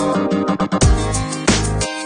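Background music: an electronic track with a steady beat.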